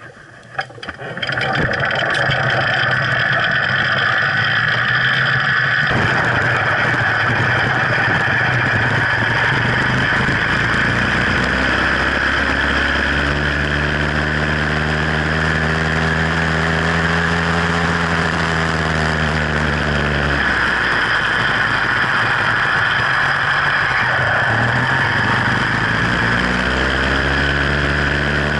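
66cc two-stroke Sky Hawk motorized-bicycle engine running while riding, coming up loud about a second in. Its pitch holds steady for a while, falls off about twenty seconds in, and climbs again a few seconds later as the throttle is opened.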